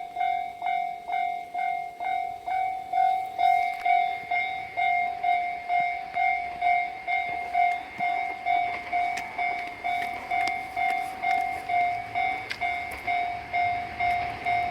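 Japanese railway level-crossing warning bell ringing "kan-kan" in an even rhythm of about two strokes a second, each a clear ringing tone.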